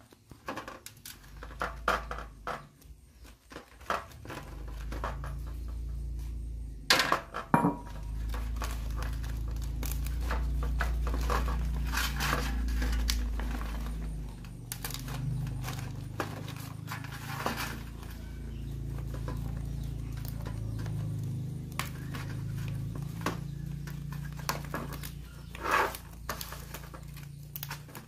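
Banana leaves rustling and crinkling as they are folded around a mound of sticky rice, with scrapes and taps on a metal tray. A steady low rumble sits underneath from about four seconds in.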